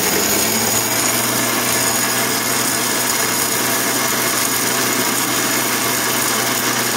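Electric mixer grinder running at full speed, grinding sun-dried red chillies with a few fenugreek seeds in its jar: a loud, steady whirring that does not let up.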